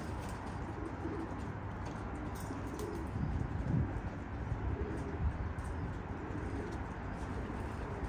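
Domestic pigeons cooing, several low calls overlapping.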